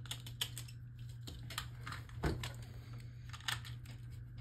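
Faint, irregular plastic clicks and taps from Beyblade parts being handled, as the top's tip is swapped and the top is readied on the launcher; the sharpest click comes about two seconds in.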